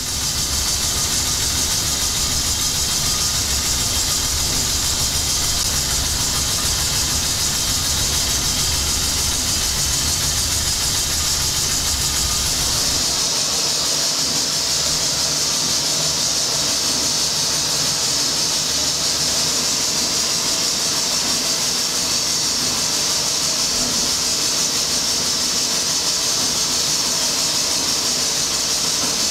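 Steady machinery noise of a steamship's boiler room: the forced draught fan running with a loud, even hiss, over a low rumble that drops away about 13 seconds in.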